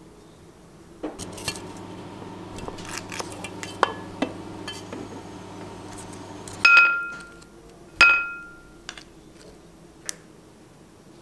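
Wooden chopsticks clicking and tapping against dishes and a bento box. Past the middle come two loud, ringing clinks, a little over a second apart, of the chopsticks striking a ceramic plate.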